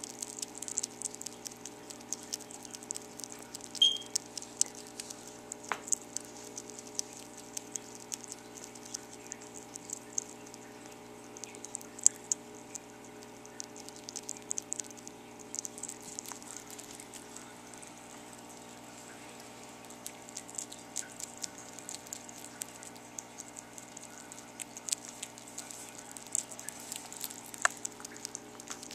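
Creamino sugar glider chewing a mealworm close to the microphone: a dense, irregular run of small sharp crunching clicks, a few of them much louder.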